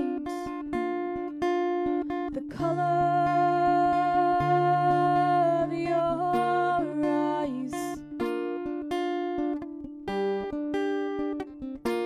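Acoustic guitar played in a steady pattern of picked notes, with a woman's voice holding one long sung note from about two and a half seconds in until about seven and a half seconds, when it slides down and stops.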